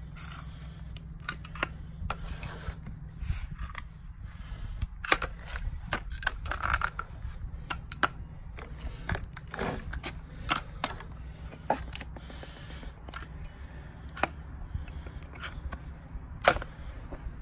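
Stainless steel tumbling pins clicking and scraping as a magnet is worked through a wire mesh strainer and the pins are dropped into a plastic tub: irregular sharp metallic clicks and rattles, some louder than others.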